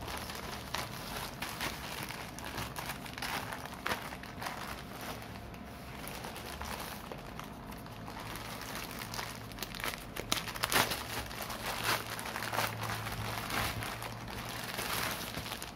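Thin plastic courier mailer bag crinkling and rustling as it is handled and opened, then the clear plastic inner bag crinkling, in irregular crackles that grow louder in the last third.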